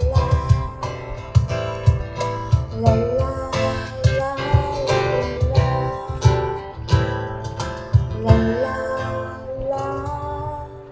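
Acoustic band playing live: strummed acoustic guitar over a steady beat of low drum hits, with a melody line on top. The music falls away at the very end.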